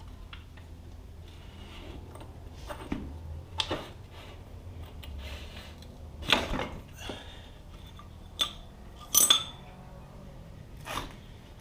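Metal parts clinking and knocking as a motorcycle's rear axle is worked out of the wheel: a handful of scattered sharp clinks, the loudest about six and nine seconds in.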